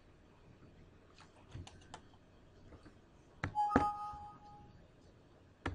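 A few soft clicks, then about three and a half seconds in a two-tone Windows alert chime sounds and fades over about a second, signalling a warning dialog box popping up on the computer. Another short click near the end.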